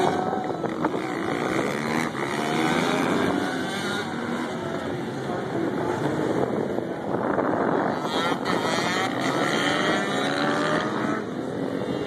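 Supermoto dirt bike engines racing, their pitch climbing as the riders accelerate and dropping as they back off, over and over, with a run of rising revs about eight seconds in.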